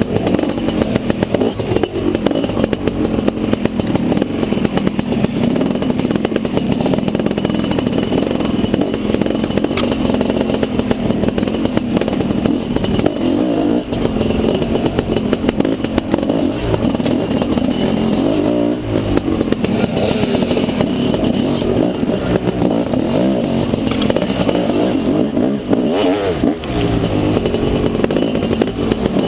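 Dirt bike engine heard from on board, revving up and down continuously as the bike is ridden hard off-road.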